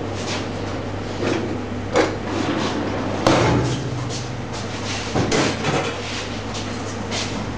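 Kitchen clatter: scattered knocks and clanks of metal trays and utensils over a steady low hum. The sharpest knocks come about two seconds and three seconds in, with a cluster of smaller ones a little later.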